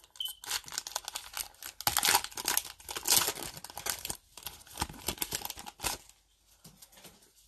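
A foil trading-card pack (Panini Mosaic basketball) being torn open by hand and crinkled, in irregular crackling rustles that stop about six seconds in.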